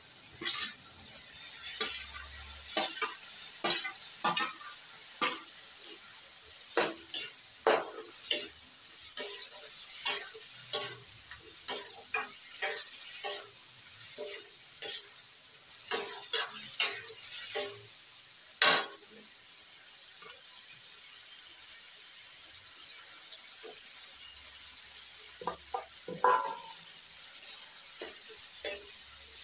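Metal spoon scraping and clinking against a steel kadhai and plate while a spiced gravy sizzles in the hot pan. The strokes come thick and fast for the first twenty seconds or so, then the sizzling carries on with a few more scrapes near the end.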